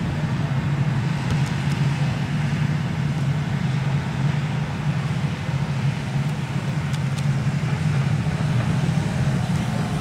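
Hitachi EX200 excavator's diesel engine running with a steady low drone while the arm lifts the bucket out of the river and swings it toward the bank.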